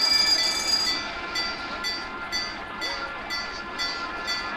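A bell-like warning signal at a small railway: one longer ring, then short rings repeating about twice a second.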